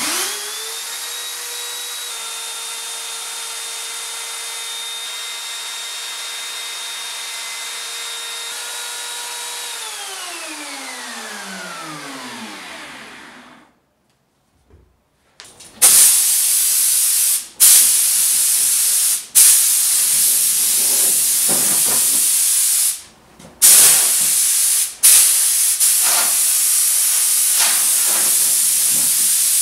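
Handheld electric router starting up, running steadily at full speed, then switched off and spinning down for a few seconds, its pitch falling. After a short silence come loud hissing bursts, a few seconds each with brief breaks.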